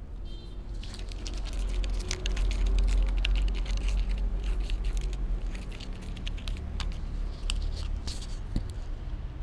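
A kitten's paws and claws scratching and tapping close against a camera and a wooden plank: a fast, irregular run of sharp clicks and scratches over dull rubbing rumble from fur and paws knocking the camera, strongest a few seconds in. A short high chirp sounds near the start.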